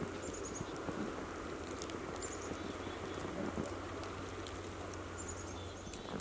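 Quiet winter forest ambience under falling snow: a steady soft hush with scattered light ticks, and a small songbird giving brief high chirps, a quick run of a few notes, about three times.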